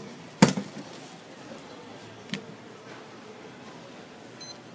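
A sharp knock about half a second in and a lighter knock a couple of seconds later, over a steady background hum; near the end a digital kitchen timer gives a short electronic beep as its button is pressed.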